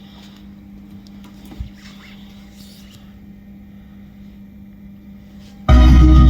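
Low steady hum with one brief low thump about a second and a half in; near the end a 2000-watt powered PA top speaker suddenly starts playing music very loud, with strong bass.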